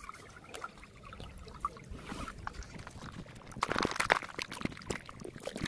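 Water trickling and dribbling as gold concentrate is squeezed from a plastic snuffer bottle into a plastic gold pan of water, with small ticks and splashes. About four seconds in, a short burst of splashing comes as the pan is dipped in shallow stream water.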